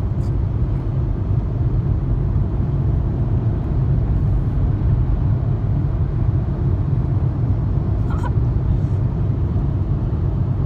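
Steady low rumble of road and engine noise inside a car cruising at freeway speed.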